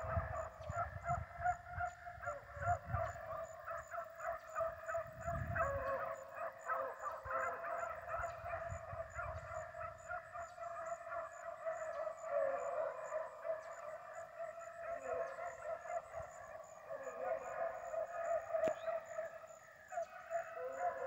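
A pack of beagles baying in full cry on a cottontail rabbit's trail, many wavering voices overlapping without a break.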